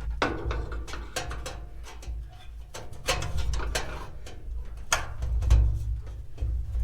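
Irregular metal clanks and clicks of gas grill parts being handled during teardown, with a few louder knocks about three and five seconds in, over a low rumble.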